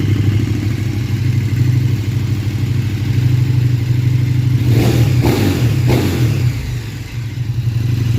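KTM Super Duke R Evo's V-twin engine idling through its stock exhaust with the dB killer cut out and the exhaust flapper valve removed, giving a bassy, deep note. About five seconds in the throttle is blipped briefly and the engine drops back to idle.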